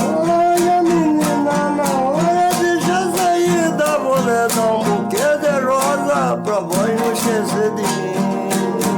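Viola de cocho, the trough-bodied folk lute of Mato Grosso, strummed in a steady rhythm, with a voice singing a wavering melody over it.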